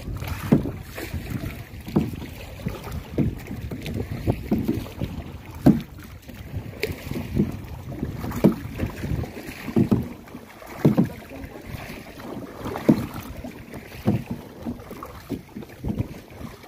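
Kayak paddle strokes dipping into and pulling through the water, a splash about every second or so.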